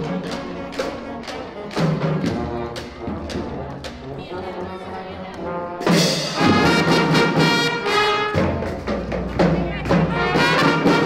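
Elementary school marching band playing a song on brass instruments over a steady drum beat, growing louder and fuller about six seconds in.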